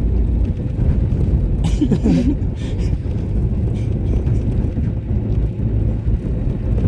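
Steady low rumble of a car's engine and tyres heard from inside the cabin while driving slowly along a snow-covered road.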